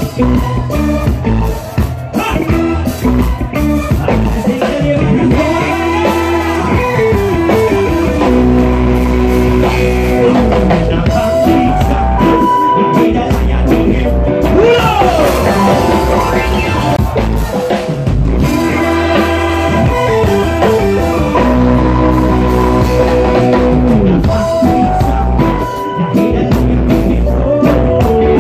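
Live band playing loud amplified music: electric guitar, bass and drum kit with an acoustic guitar, and a voice singing into the microphone.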